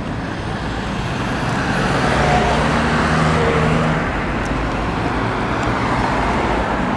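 Road traffic: a motor vehicle's engine grows louder and passes between about one and four seconds in, over a steady low rumble.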